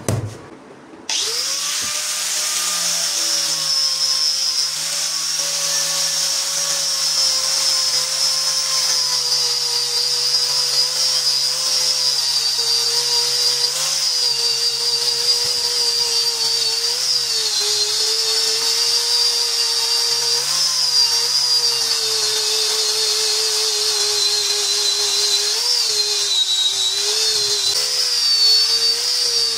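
Electric power tool motor starting about a second in, spinning up and running steadily with a high hiss, its pitch dipping slightly now and then.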